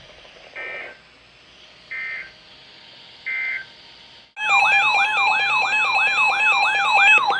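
Three short bursts of Emergency Alert System data tones, the end-of-message signal closing the warning. About four seconds in, a loud electronic siren-style alert tone starts, sweeping up over and over about three times a second over a steady high tone.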